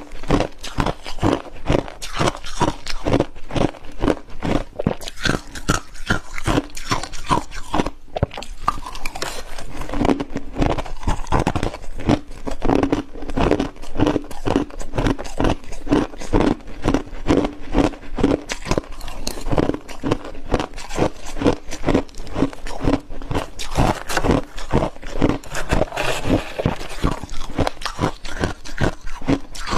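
Close-up crunching and chewing of deep-freezer frost, the icy frost cracking between the teeth in a quick run of sharp crunches, a few each second, without a pause.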